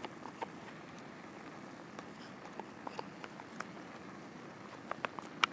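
Steady rain with scattered drops tapping on a tarp, and a quick run of sharper clicks about five seconds in.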